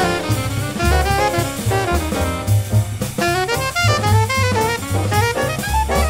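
Live small-group bebop jazz: an alto saxophone solos in quick runs of short notes over a drum kit and upright bass.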